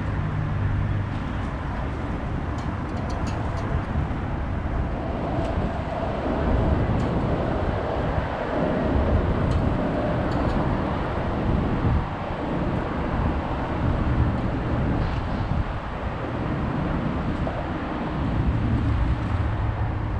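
Outdoor background noise: a fluctuating low rumble of wind on the microphone and passing traffic, with a few faint light clicks.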